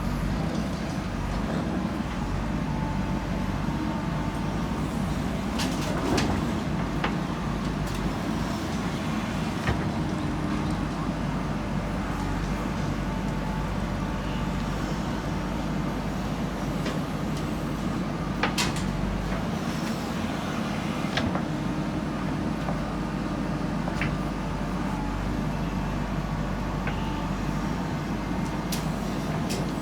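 Heavy diesel engine of earthmoving machinery running steadily under load, with scattered sharp metallic clanks.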